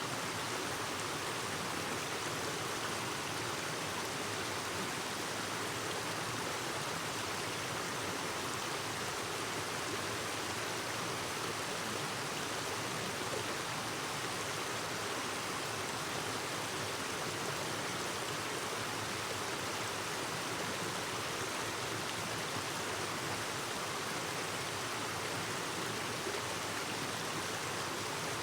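A clear stream babbling steadily, an even, unbroken rush of running water.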